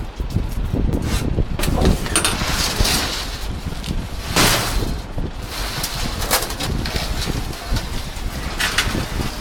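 Heavy machinery running with a continuous low rumble, broken by several short rushing noises, the loudest about halfway through.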